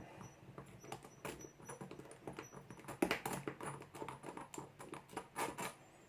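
Faint, irregular small clicks and scrapes of metal on metal as a Phillips screwdriver works at the faceplate screw of a Kryptonite padlock.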